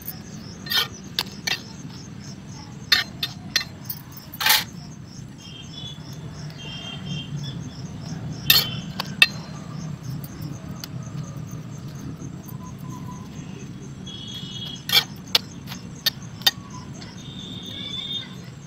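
Crickets chirping steadily in a fast pulsing trill over a low rumble, with about a dozen sharp clicks and clinks scattered through, like a metal spatula tapping on an iron griddle, and a few short high chirps.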